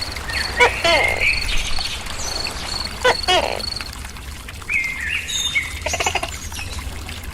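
Tokay gecko giving its two-part "to-kay" call twice, about two and a half seconds apart. A cricket chirps in rapid, even pulses behind it for the first few seconds, with some bird chirps.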